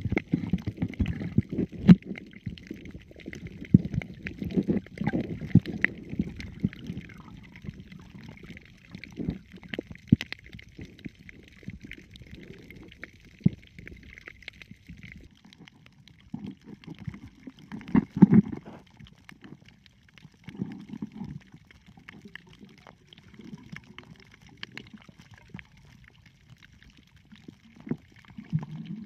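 Underwater sound as heard by a diving camera: muffled water sloshing and rumbling around the housing as the diver moves, with scattered sharp clicks and crackles. The water noise swells louder at the start, a little past halfway and again near the end.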